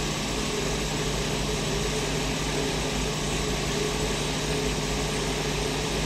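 1993 BMW E34's six-cylinder engine idling steadily. The engine has an intermittent misfire that shows up as unburned fuel in the exhaust, suspected on cylinder two.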